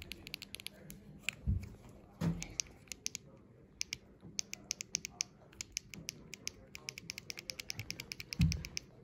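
Otis Gen 2 microtouch lift call button pressed again and again by thumb, its switch clicking fast in runs broken by short pauses. Three dull bumps from the button being handled.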